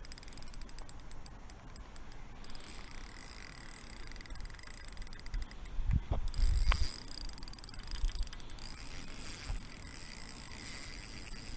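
Shimano Soare C2000PGSS spinning reel being wound in a steady retrieve, with fine ticking early on and a few soft handling knocks about six to seven seconds in.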